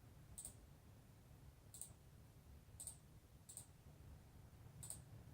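Faint computer clicks: five single clicks spaced about a second apart, over a low steady hum.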